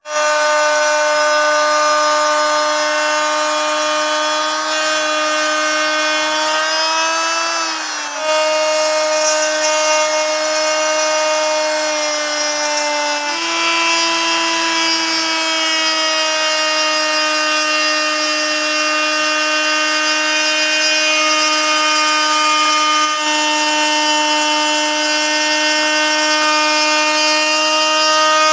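Large Modern M-2850 plunge router with a 4 mm slotting bit running at full speed and cutting grooves into a wooden board: a loud, steady high whine with cutting noise. Its pitch sags briefly about eight seconds in and shifts again around thirteen seconds as the bit loads in the wood.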